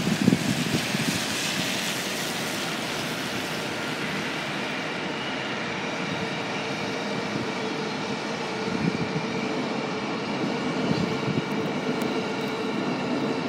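Electric commuter train passing on elevated tracks, its motors giving a steady multi-tone whine from about five seconds in, over a constant rushing background. Low gusts of wind hit the microphone right at the start.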